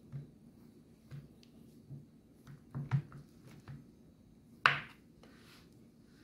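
Chef's knife cutting through a round of bammy (cassava flatbread) on a wooden cutting board: a string of soft taps and knocks as the blade presses through and meets the board, with one sharp, louder knock late on.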